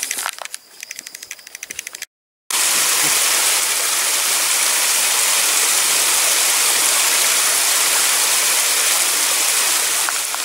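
Shallow stream water rushing steadily past a concrete ledge, a loud even wash that starts after a brief silence about two and a half seconds in. Before it, footsteps and light rustling on a wooded trail.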